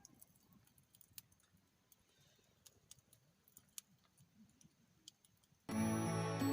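Faint quiet with scattered small clicks and ticks, then background music comes in suddenly near the end.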